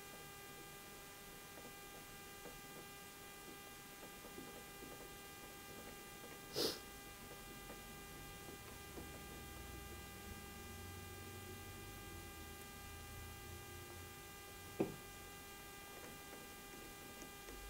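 Steady electrical mains hum with faint handling noise as small screws are driven by hand into a wooden spinning-wheel treadle; a short noisy sound comes about six seconds in and a single sharp click near the end.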